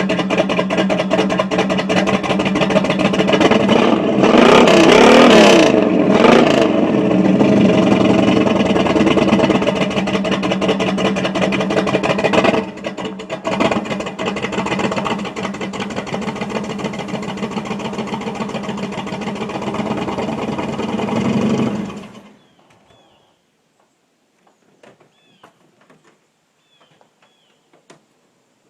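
Chevy 350 small-block V8 running, with a couple of quick revs about four to seven seconds in, then settling back to idle. The owner suspects a misfire. The engine is shut off about 22 seconds in, and after that only a few faint chirps are heard.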